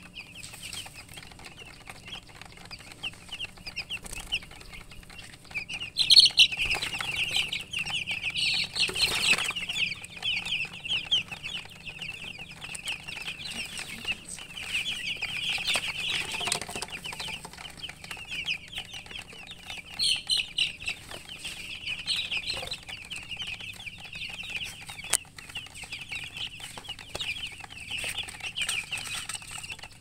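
A flock of baby chicks peeping, many short high chirps overlapping without pause. They grow louder and busier about six seconds in.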